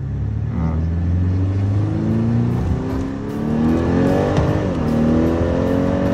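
BMW X3 30e plug-in hybrid's 2.0-litre turbo four-cylinder accelerating in sport mode: the engine note climbs, drops sharply about four and a half seconds in at an upshift, then climbs again. Under it runs a light fluttering rattle that the owner hears as a screw vibrating.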